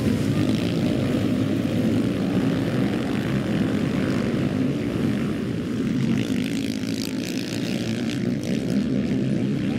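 Several sidecarcross outfits' motorcycle engines running hard on the track, a steady loud drone that swells and eases slightly as the outfits pass.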